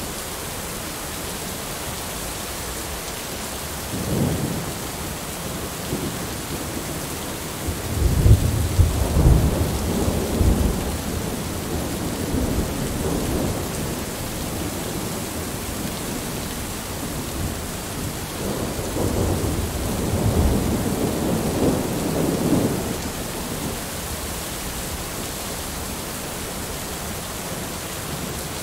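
Heavy rain falling steadily, with thunder rumbling through it twice: the first roll builds about four seconds in and is loudest around eight to ten seconds, the second rolls about two-thirds of the way through.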